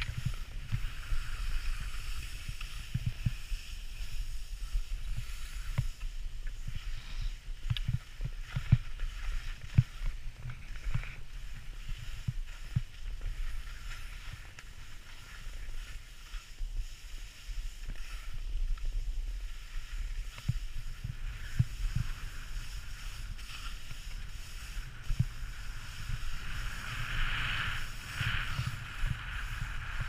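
Skis sliding over packed snow with a steady hiss, louder near the end, over low wind buffeting on the microphone and frequent short thumps.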